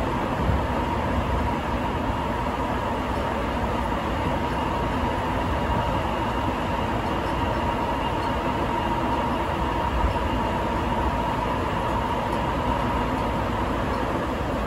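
Sapporo Subway Tozai Line rubber-tyred train running at speed, heard from inside the car: a steady rushing running noise with a constant whine through it.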